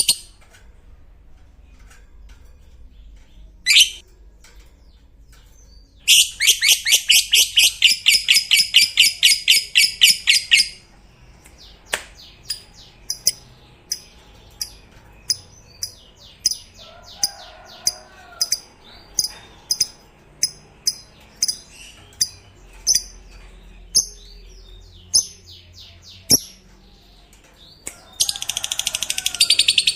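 Lovebird giving its long 'ngekek' chattering song: a rapid run of harsh, high pulses for about five seconds, then a string of separate short sharp chirps, and another rapid chatter starting near the end.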